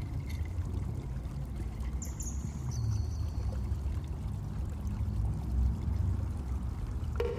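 Shallow muddy water sloshing and trickling as a small die-cast toy car is pushed through a puddle, over a low steady rumble.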